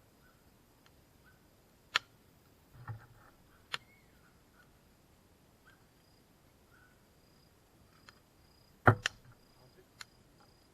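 Wood fire crackling: a handful of sharp pops at irregular intervals, the loudest a double pop about nine seconds in, with a soft low thud about three seconds in.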